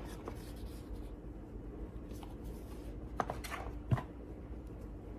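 Hands quietly handling jewelry packaging, with light rustles and two small sharp clicks about three and four seconds in.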